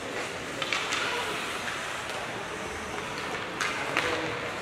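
Ice hockey rink ambience: a steady hum of the arena with skate blades scraping the ice and a few sharp clacks of sticks and puck, about a second in and again near the end.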